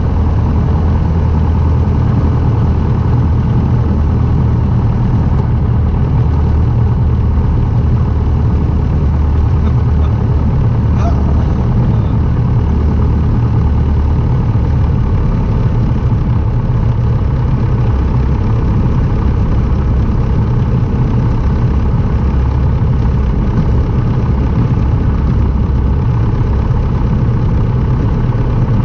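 Light aircraft engine running steadily at constant power: a loud, even, low drone with no change in pitch.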